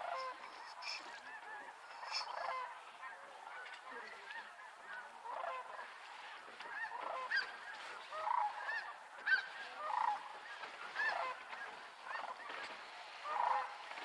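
A large flock of snow geese calling, many overlapping honks, some single calls standing out close and loud over the steady din of the rest of the flock.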